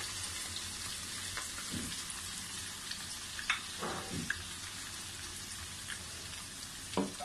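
Freshly added chopped onions and cumin seeds frying in hot oil in a karahi: a steady sizzle.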